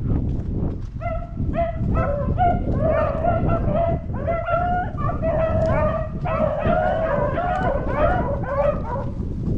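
A pack of beagles baying in chorus, many overlapping howling notes starting about a second in and continuing: hounds running a rabbit's track. A steady low rumble runs underneath.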